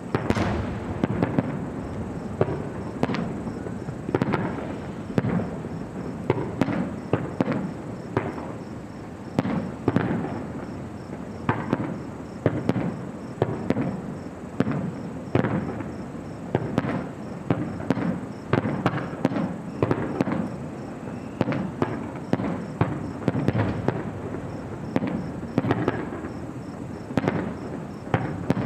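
Aerial fireworks bursting in rapid succession: a dense run of sharp bangs, several a second, over a continuous low rumble.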